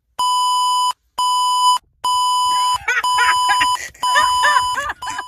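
Loud electronic beeping: a steady, buzzy tone repeating in beeps just under a second long, the noise the skit gives to fake AirPods. From about three seconds in, a person's voice cries out over the beeping.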